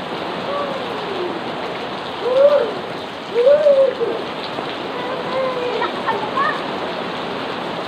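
Heavy rain falling steadily on a swimming pool and the ground around it, with a few short, wordless voice sounds from people at the pool rising and falling in pitch.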